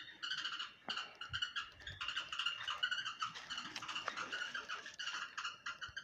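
Birds chirping: a fast, continuous run of high chirps.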